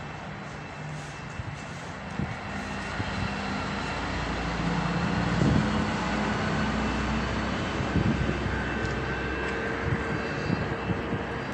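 A steady engine drone that grows louder about four seconds in and stays up.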